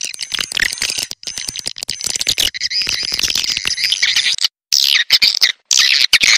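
Recorded calls of edible-nest swiftlets: dense, high-pitched twittering and chirping, the lure sound played to draw swiftlets into a nesting house. The chirping breaks off abruptly twice, briefly, about four and a half and five and a half seconds in.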